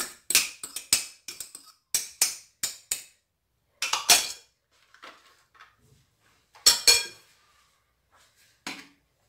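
Clinks of a small ceramic bowl knocked against a glass mixing bowl as chopped coriander and parsley are emptied out, a quick run of clicks, then a few louder single knocks as the bowl and a fork are set down.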